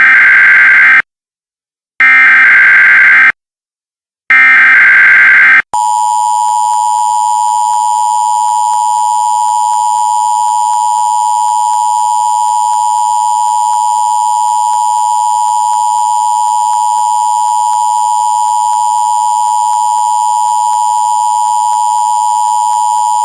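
Emergency Alert System header: three loud bursts of SAME digital data tones, each about a second long with a second of silence between. They are followed by the steady two-tone EAS attention signal (853 and 960 Hz), the signal that opens an emergency alert broadcast.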